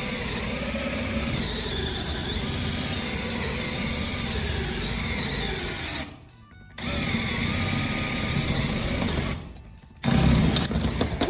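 Electric drill with a quarter-inch steel bit drilling out hinge rivets. It runs in three long stretches with two short pauses, about six and a half and nine and a half seconds in.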